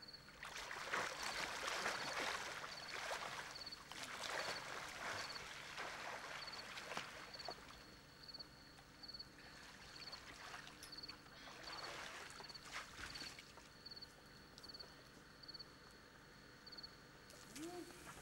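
Pool water splashing and swishing as a swimmer moves through it, in several uneven swells of splashing that ease off after about thirteen seconds.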